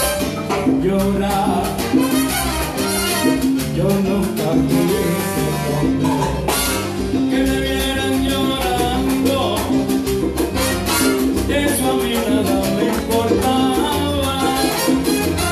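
Live salsa orchestra playing, with congas in the percussion section keeping a steady rhythm.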